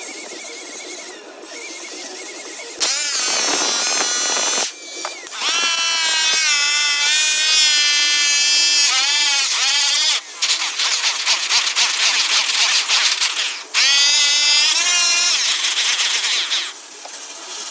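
DeWalt electric polisher with an airway cut buff running against an aluminium truck wheel. About three seconds in the motor comes on, and its whine dips and recovers in pitch as the buff loads against the metal. It cuts out briefly a couple of times, with a stretch of rough scrubbing noise in the middle, and stops near the end.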